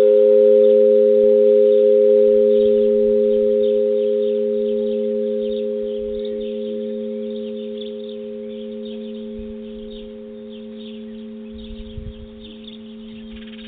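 A large church bell's ring dying away after a strike: a low hum with two higher tones above it, fading slowly and steadily.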